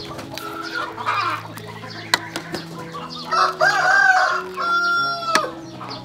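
Chickens clucking and a rooster crowing: short arched calls, then one long held crow near the end that drops in pitch as it stops, over background music with steady held notes.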